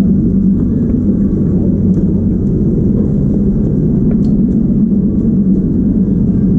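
Steady low drone of an enclosed lifeboat's diesel engine idling, heard from inside the boat, with a few faint clicks and knocks.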